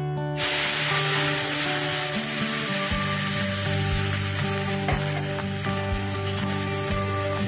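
Cold milk poured into hot ghee and fried bread crumbs in a steel kadhai, setting off a dense, steady sizzle that starts suddenly about half a second in. The sizzle goes on as the mixture is stirred.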